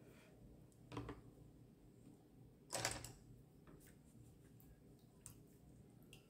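Near silence: room tone, broken by two brief soft knocks, one about a second in and a louder one near the three-second mark, and a few faint ticks later on.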